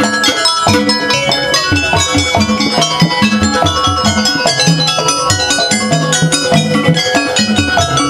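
Live Javanese gamelan-style dance music for Jaranan Buto: tuned metal percussion ringing out quick notes over a driving drum pattern, played loud and steady.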